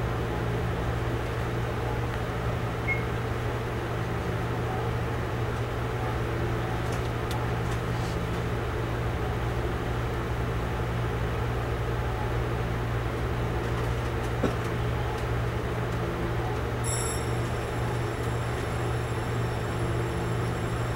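Steady running noise of a Taiwan Railway EMU700 electric commuter train: a constant low hum and rumble. A set of faint, steady high-pitched tones comes in over the last few seconds.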